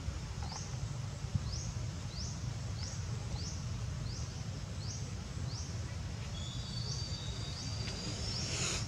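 Outdoor nature ambience: a short, high, rising chirp repeated about twice a second, joined in the last few seconds by a steady high trill, over a constant low rumble.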